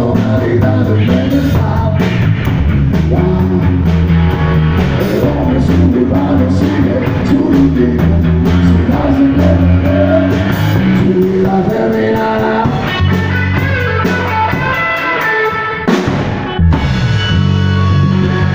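Live rock band playing loudly: drums on a Premier drum kit, electric guitar and bass guitar together.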